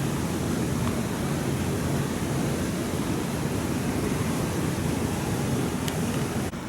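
Steady rush of a creek's water running over rocks and rapids below a waterfall. It drops a little just before the end.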